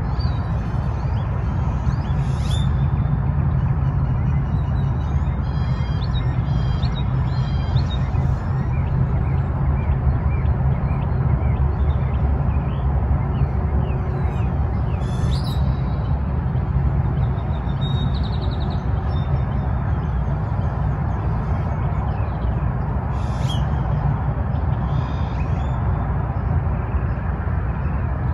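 Birds calling at dawn, short high chirps here and there, over a steady low rumble.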